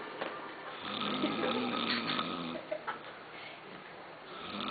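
A man snoring in his sleep: one low snore lasting under two seconds, beginning about a second in, then a pause and the next snore starting near the end.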